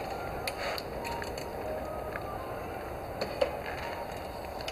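A motorized bicycle being handled with its engine off: a few light clicks and one sharper metallic click about three and a half seconds in as its kickstand is set down.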